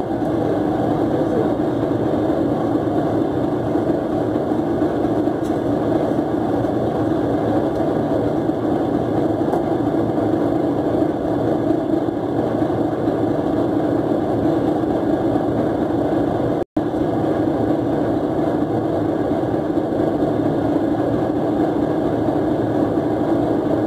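Fishing boat's inboard diesel engine running steadily, a constant drone that drops out for an instant about seventeen seconds in.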